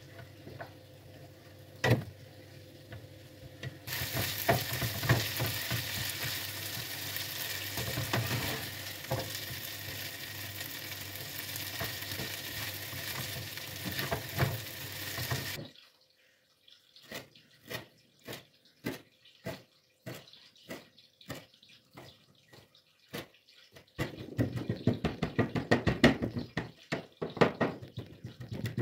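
Zucchini sticks frying in oil in a nonstick pan, sizzling steadily while a plastic spatula stirs and scrapes them. The sizzle cuts off suddenly, and a knife then chops fresh dill on a plastic cutting board in a run of quick sharp taps that grows louder and faster near the end.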